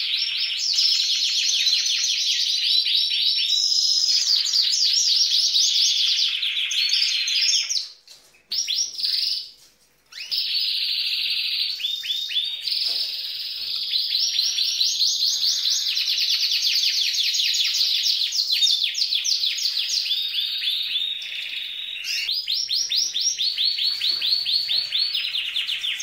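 A green canary singing a full, male-style song of long, fast trills of repeated notes, breaking off briefly twice about eight to ten seconds in. The keeper insists the singer is a hen singing like a cock bird.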